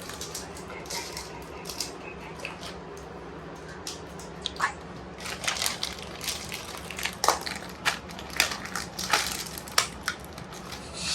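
Makeup products and their packaging handled close to the microphone for ASMR: irregular sharp clicks and crackles, coming thicker in the second half.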